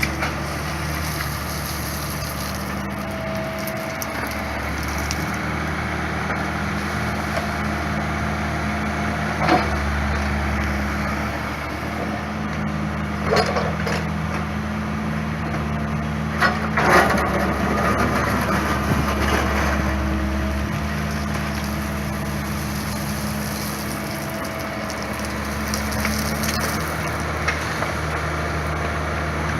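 Diesel engine of a digger running steadily while concrete is broken up, with a few sharp cracks and knocks around the middle as slabs break and shift.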